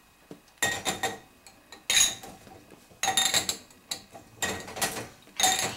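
Dishes and cutlery clinking and clattering as they are lifted out of a dishwasher rack, in about five separate bursts with a short ring after each.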